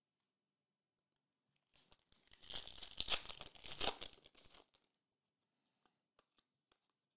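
Foil wrapper of a Topps Garbage Pail Kids Chrome trading-card pack being torn open and crinkled, starting a little under two seconds in and lasting about three seconds, followed by a few faint ticks.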